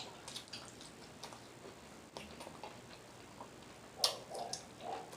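Close-miked eating sounds: wet lip smacks and mouth clicks while chewing, coming at irregular intervals, with the sharpest smack about four seconds in.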